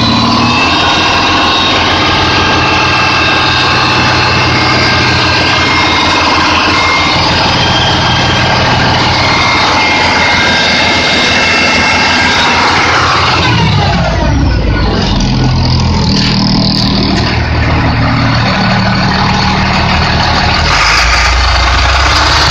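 International DT466E inline-six turbodiesel running steadily, heard up close in the engine bay. About two-thirds of the way through, a whine falls in pitch and the low rumble grows heavier.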